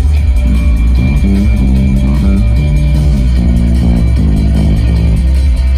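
Loud amplified music: electric guitar and bass guitar playing a line of changing notes through a stage PA over a heavy, steady low end.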